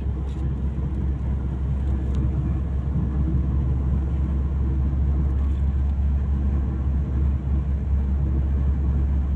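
Motor vehicle running with a steady low rumble.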